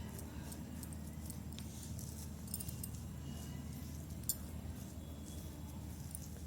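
Fingers spreading a soft mashed-potato filling over rolled dough: faint smearing and squishing with a few small clicks, over a steady low hum.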